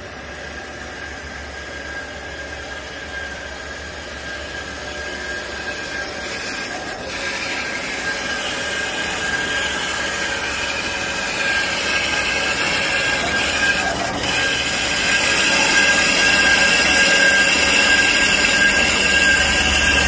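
Kyungdong metal-cutting band saw running, its blade cutting through two high-pressure steel pipes under flowing coolant: a steady grinding hiss with a thin high whine, growing louder throughout.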